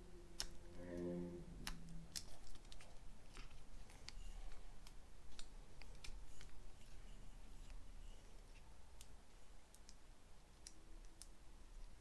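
Scattered small clicks and taps of hands working on motorcycle wiring and plastic connectors, with a short pitched hum about a second in.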